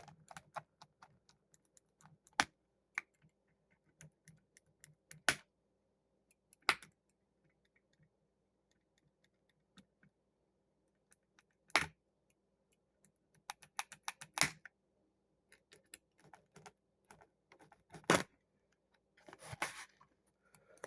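Small plastic clicks and taps from handling a Transformers toy figure and its packaging. The sharp clicks come irregularly, with a quick run of them a little past the middle.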